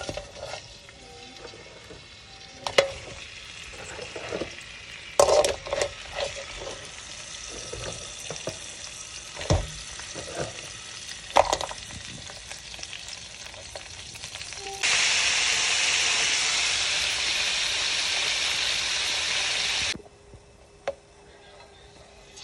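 Whole mud crabs frying in hot oil in a pan: a steady sizzle with occasional sharp knocks of shell or utensil against the pan. The sizzle swells much louder for about five seconds past the middle, then cuts off suddenly.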